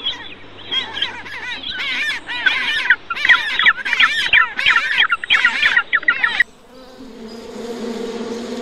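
Rapid chattering series of short, high chirping calls from an animal, cutting off abruptly about six and a half seconds in. A steady buzz starts shortly after.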